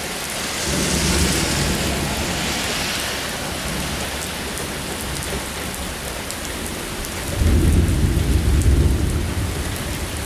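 Heavy thunderstorm rain pouring steadily. Thunder rumbles about a second in, then a louder, sudden low clap of thunder comes about seven seconds in and rolls on for about two seconds before fading.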